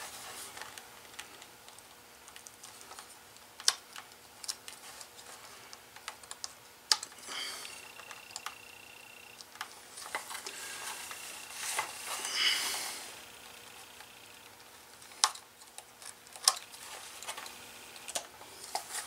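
Quiet scratching and scattered sharp clicks of a small metal blade picking and cutting old, age-worn stitching out of a leather holster seam, with a few brief rustles of leather being handled.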